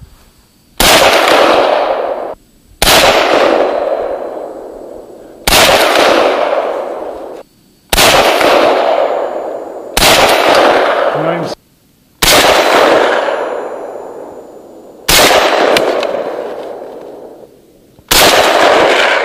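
Norinco M305, an M14-pattern semi-automatic rifle in .308 Win (7.62×51mm), firing eight single shots with about two to three seconds between them. Each sharp report trails off in a long echoing decay.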